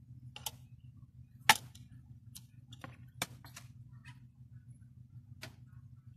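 Scattered sharp clicks and taps of a round film-reel-style CD package being handled as its reel-shaped piece is prised out of the lid; the loudest click comes about one and a half seconds in. A low steady hum runs underneath.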